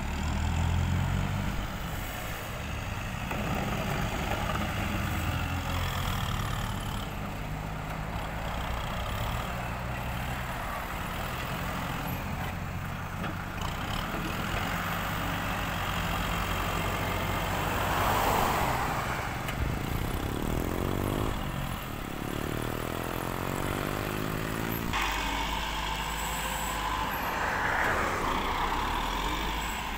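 Diesel farm tractor engine running steadily as the tractor drives up and pushes into a pile of dumped soil with its front blade. A vehicle passes on the road about two-thirds of the way in.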